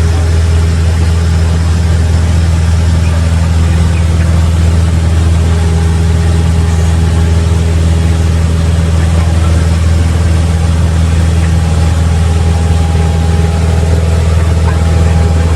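Cessna 172's piston engine and propeller running steadily, a loud, even low drone heard from inside the cabin.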